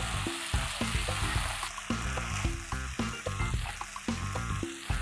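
Chicken pieces sizzling in hot oil as they are sautéed in a pan and stirred with a spoon, with a steady hiss and the short knocks and scrapes of the spoon.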